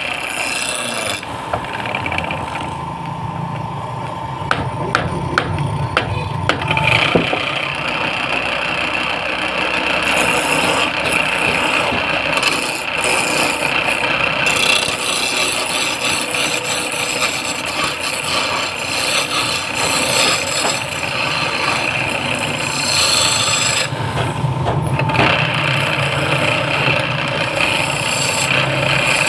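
Wood being cut on a running wood lathe: continuous scraping of a turning tool against the spinning wood over a steady machine whine, with a few sharp clicks about four to seven seconds in.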